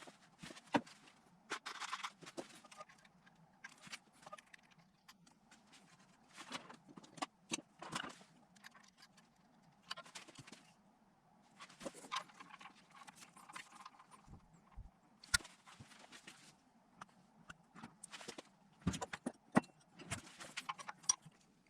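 Short bursts of small metallic clicks and knocks from hand tools and fittings, again and again with pauses between. A sensor is being threaded and tightened into the engine's oil filter takeoff plate.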